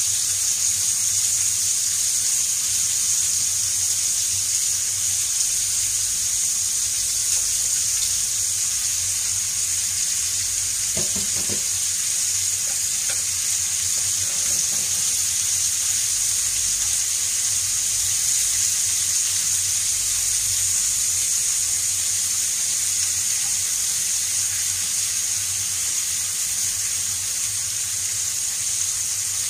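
Beef ribs and sliced white onion frying in hot oil in a pan, a steady high sizzle.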